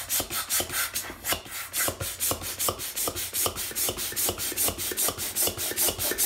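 Small hand air pump worked fast in quick, even strokes, about four a second, each stroke a short rasping rush of air as it inflates a vinyl exercise ball.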